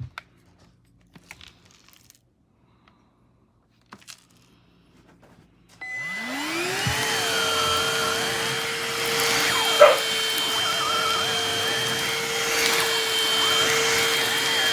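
Cordless handheld vacuum (Bissell Pet Hair Eraser) switched on about six seconds in: its motor spins up within a second to a steady high whine with rushing air, with one sharp knock a few seconds later. Before it, only a few light handling clicks.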